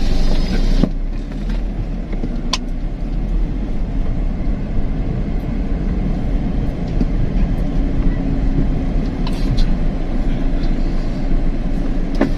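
Car engine and road noise heard from inside the cabin as the car creeps along slowly, with a couple of sharp clicks about one and two and a half seconds in.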